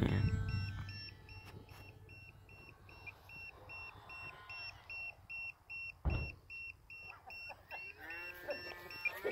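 Electronic beeping, short high beeps repeating evenly about three times a second: an RC transmitter's low-battery alarm. A single low thump about six seconds in.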